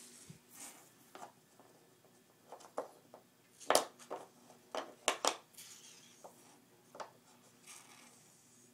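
Wooden alphabet puzzle pieces clacking against the wooden puzzle board as they are handled: about a dozen short, sharp knocks, the loudest a little under four and about five seconds in.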